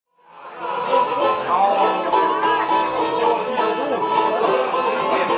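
Instrumental intro of an Albanian folk song led by a plucked long-necked folk lute, fading in over the first second and then playing steadily with gliding, ornamented notes.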